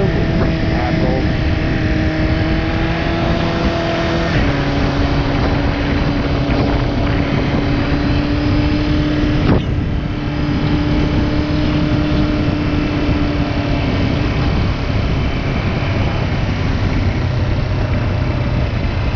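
Motorcycle engine running under way, with rushing wind and road noise over the microphone. The engine note steps down once about four seconds in, and there is a single sharp click near the middle.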